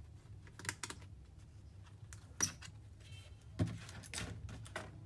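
Plastic clicks and knocks as the battery of an HP EliteBook 840 G3 laptop is disconnected and lifted out of the chassis: a handful of short sharp taps, the loudest about two and a half and three and a half seconds in.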